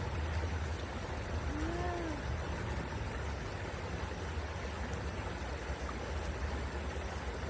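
Steady rushing of flowing water with a low rumble, and one short pitched call that rises and falls about two seconds in.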